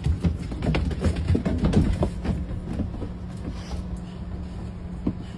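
A dog climbing the bus's entry steps, its claws and paws clicking and knocking on the ribbed treads for the first few seconds, over the steady hum of the bus engine idling.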